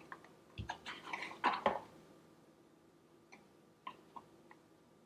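Faint handling sounds of a cardboard box of baking soda being scooped with a plastic measuring spoon over a stainless steel mixing bowl. There is a quick run of rustles and clicks with a soft thump in the first two seconds, then a few light ticks.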